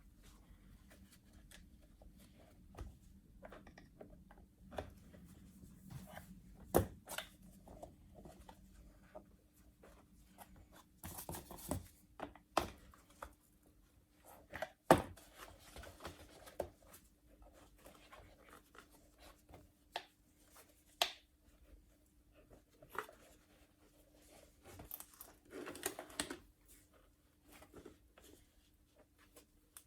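Scattered clicks, taps and light rustles of small objects being handled at irregular intervals, with a sharper knock near the middle. A faint steady hum runs underneath.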